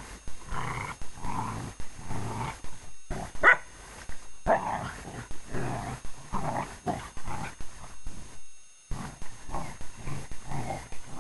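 Two English Springer Spaniels play-fighting, a string of short rough play-growls one after another, with one sharper, louder cry about three and a half seconds in and a brief pause just past eight seconds.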